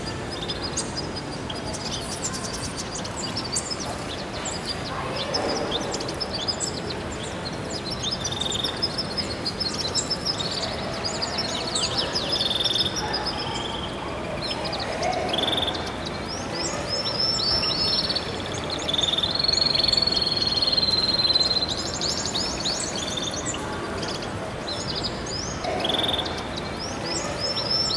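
Many small aviary birds chirping and twittering together in overlapping short calls and trills, with a longer steady whistle about two-thirds of the way through.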